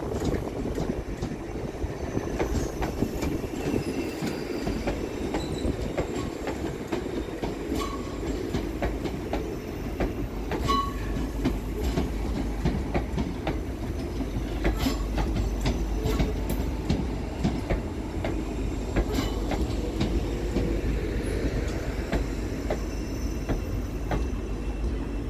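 Two coupled ScotRail Class 334 electric multiple units pulling into a platform to terminate. Their wheels rumble steadily and click over rail joints and points, with a few brief wheel squeals.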